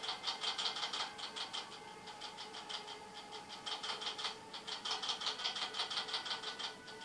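Orange-wood stick tapping and scratching quickly against a plastic nail tip as it swirls colour gel through wet top gel: about seven small ticks a second, in two runs with a short pause about halfway through.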